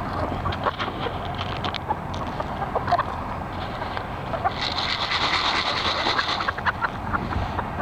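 Chickens clucking and squawking, with a steady hiss for about two seconds in the middle.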